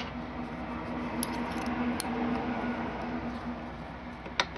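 A steady low hum, then near the end two sharp metallic clicks as a steel workpiece is handled in a milling-machine vise.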